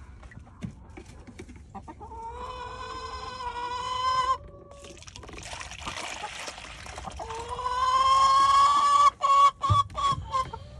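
Backyard hens in a chicken run, one giving two long, drawn-out calls of about two seconds each, the first about two seconds in and the second just past the middle. A short rustling noise comes between the calls, and light ticks are scattered throughout.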